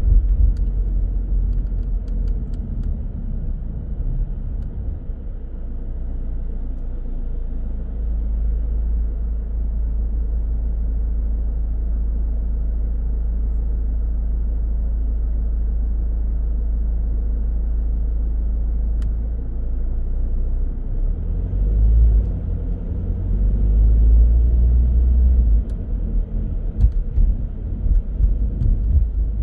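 Car driving, its low road and engine rumble steady at first, then turning uneven and a little louder about two-thirds of the way through.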